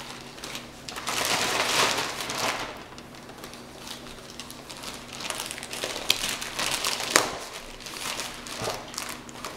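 White packaging wrap rustling and crinkling as a package is opened and a boxed charger is pulled out of it. There is a long loud burst of crinkling about a second in, then lighter rustles with a couple of sharp clicks near the end.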